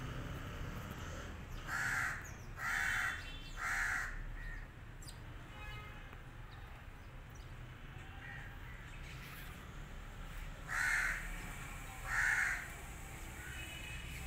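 A crow cawing: three caws about a second apart, then two more close together near the end.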